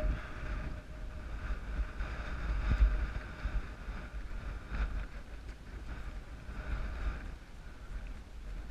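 Wind buffeting the microphone in gusts, with a few soft footsteps on low, springy heath vegetation.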